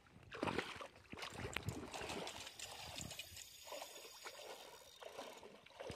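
Water splashing and trickling in irregular bursts.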